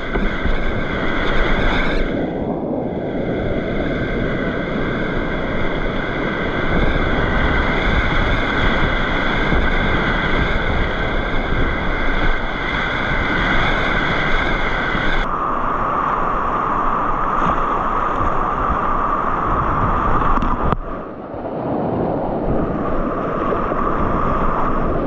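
Rushing river whitewater: a loud, steady roar of rapids with wind on the microphone. Its tone changes abruptly about two-thirds of the way through, and again a few seconds later after a brief drop in level.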